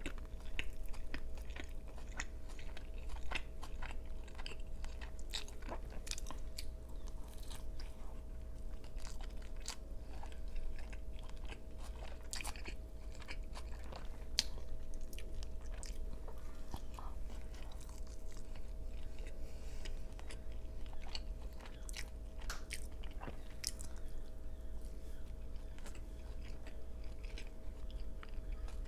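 Close-miked chewing of a beef slider with mushrooms: a steady run of short wet mouth clicks and smacks as the bun and patty are bitten and chewed.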